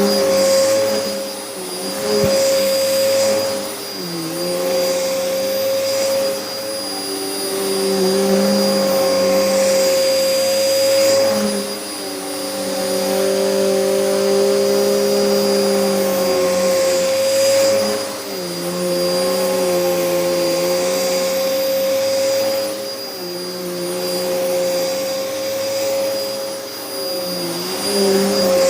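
Hoover upright vacuum cleaner running, with a steady motor whine. Lower tones under it dip and recover every couple of seconds as it is pushed back and forth, and the loudness swells and falls with each stroke. The machine is clogged, which the owner blames for the poor pickup.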